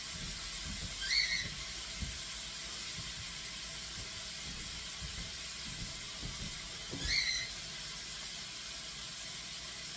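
Meat browning in an oiled frying pan, sizzling with a steady hiss, with a few soft low knocks. Two short high rising chirps sound about six seconds apart.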